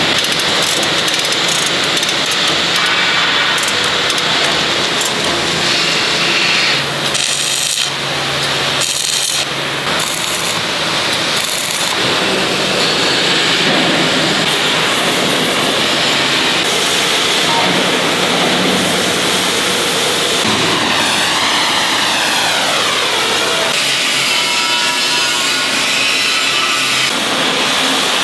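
Steady loud hiss of an oxy-fuel gas torch working the steel plate of an excavator bucket, over workshop noise. It dips briefly twice about a quarter of the way in, and its tone sweeps briefly about three-quarters through.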